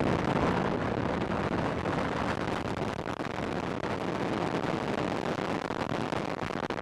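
Proton rocket's first-stage engines (six RD-275M, hypergolic) firing at ignition and lift-off: a loud, steady, dense rush of noise with a constant crackle.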